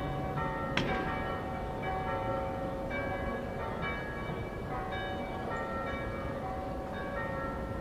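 Church bells ringing together in a full festive peal, the cathedral's own bells with those of the city's other towers: many overlapping strikes with long ringing tones. A single sharp click stands out about a second in.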